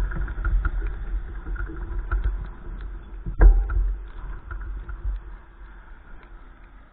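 Storm wind buffeting the microphone as a heavy low rumble, with scattered light ticks and one sharp knock about three and a half seconds in. The gusts die down toward the end.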